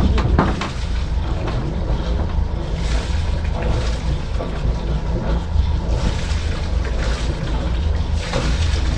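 Wind buffeting the microphone in gusts, a steady low rumble, with a few scattered knocks and rattles around the boat.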